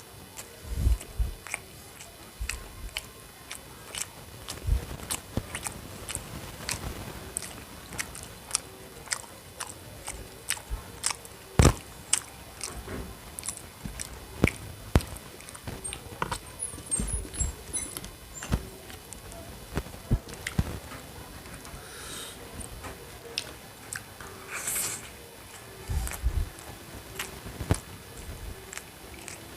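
Close-miked eating: chewing and biting, with many short wet mouth clicks and smacks at an irregular pace and one louder knock near the middle.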